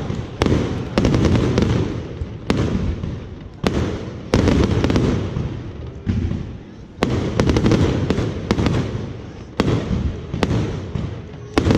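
Fireworks going off in a rapid, uneven string of sharp bangs, about one or two a second, each trailing a low rumble that overlaps the next.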